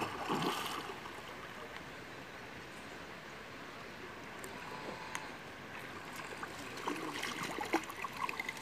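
A hooked fish splashing at the surface of a pond about half a second in, then steady lapping water; near the end, a run of short splashes and knocks as a landing net goes into the water under the fish.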